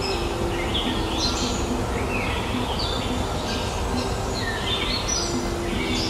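Rose-ringed (Indian ringneck) parakeets calling repeatedly, short calls about once or twice a second, over a steady low background rumble.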